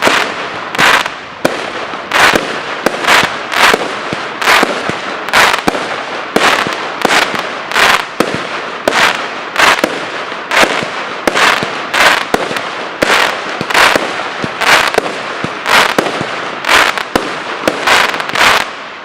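Display fireworks bursting in a rapid, evenly spaced barrage, a little more than one loud bang a second over continuous crackling, which stops abruptly near the end.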